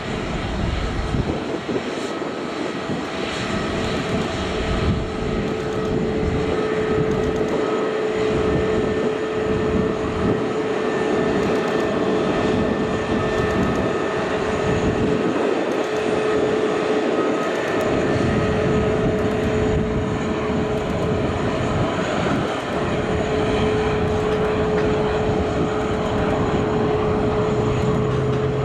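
Airbus A321neo's twin turbofan engines running at taxi power as the airliner rolls past: a steady engine noise with a held whining tone. A lower hum joins near the end.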